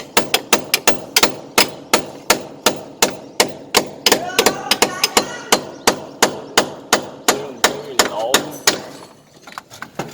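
Hammer blows in a steady rhythm, about three a second, on a building site. They stop suddenly about nine seconds in.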